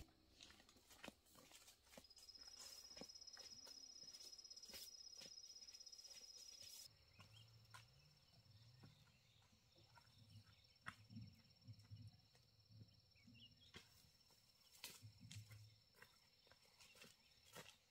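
Faint outdoor ambience: a high, steady insect trill, clearest from about two to seven seconds in and then fainter. There are scattered soft clicks and rustles, and low muffled sounds in the middle.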